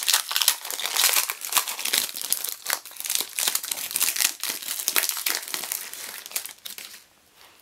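Foil wrapper of a Panini Donruss trading-card pack crinkling and crackling as it is torn open and the cards are pulled out of it; the crinkling stops just before the end.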